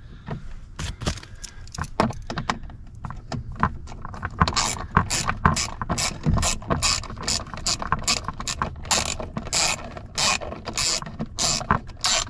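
Hand ratchet clicking as a bolt is backed out, in repeated back-and-forth strokes. The clicks are scattered at first and turn into quick, regular bursts of about two strokes a second from about four seconds in.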